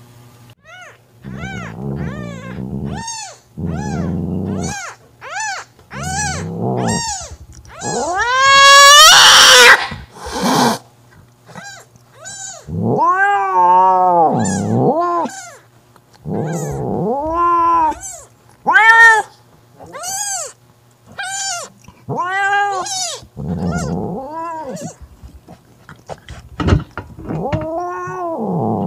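Mother cat caterwauling at another cat to keep it away from her newborn kitten: a long run of drawn-out cries that rise and fall, with low growls between them in the first seconds. About nine seconds in, one loud, long cry climbs higher into a scream.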